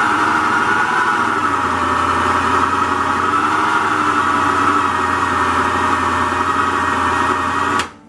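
Moulinex La Machine II food processor motor running steadily under a held pulse button, its blade churning thickening pie-crust dough. The motor cuts off abruptly near the end.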